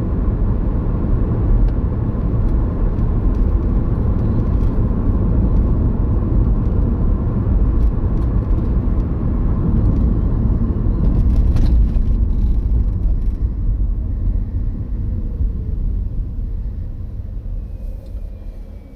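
Car cabin road and engine noise while driving, a steady low rumble that eases off over the last few seconds.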